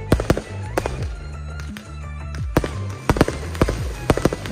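Aerial firework shells bursting in sharp bangs, a few near the start, then a rapid volley over the last two seconds, heard over music with sustained bass notes.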